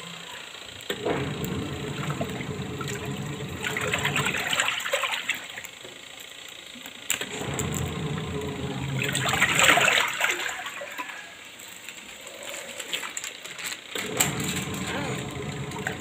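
Toshiba VH-H95MN twin-tub washing machine agitating a load of clothes in its wash tub: the motor runs and the water churns and sloshes in repeated surges about every five seconds, with short quieter lulls between.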